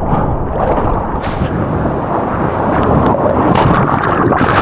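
Loud wind buffeting the microphone over rushing water, a continuous roar with a few brief crackles.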